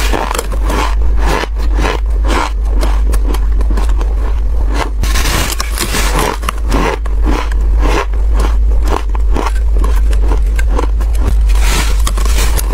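Biting and chewing a block of freezer frost: dense, irregular crunching and crackling, bite after bite, over a steady low hum.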